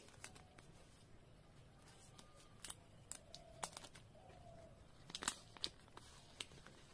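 Faint, scattered clicks and crinkles of plastic protective film on an Infinix Note 12 Pro 5G smartphone as the phone is handled and unwrapped, with a few sharper ticks a little past five seconds in.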